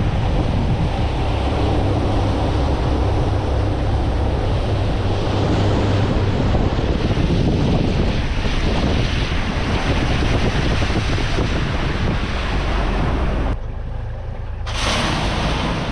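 Boat running at speed across the water: wind buffeting the microphone over the rush of water along the hull and the steady low drone of the outboard. The noise drops away briefly near the end before picking up again.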